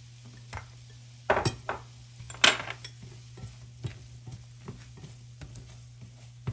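Silicone spatula stirring chopped red onion in butter and garlic in a nonstick frying pan: scattered scrapes and light knocks against the pan, the two loudest about one and a half and two and a half seconds in, over a low steady hum.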